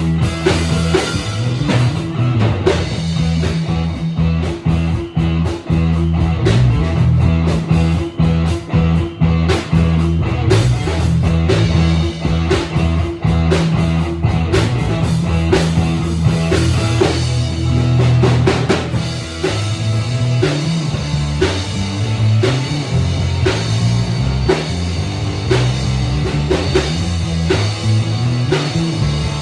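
Instrumental rock jam by a trio: electric-style guitar, bass guitar and drum kit playing together, the bass loud and the drums busy. About two-thirds of the way in, the bass moves from a held pattern to a shifting line.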